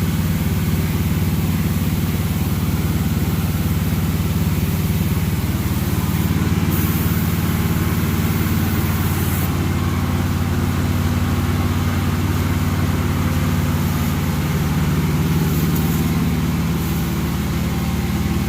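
An engine idling steadily, a low, even hum with no revving.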